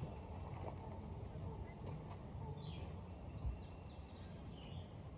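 A songbird singing a run of repeated high chirped notes, then a second run that steps down in pitch, over a steady low rumble of wind or outdoor background. A brief low thump comes about three and a half seconds in.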